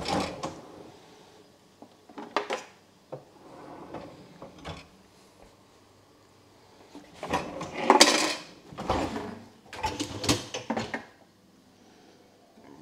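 Kitchen clatter of dishes, pans and utensils being handled, in scattered knocks and clinks with a busier, louder stretch about seven to eleven seconds in.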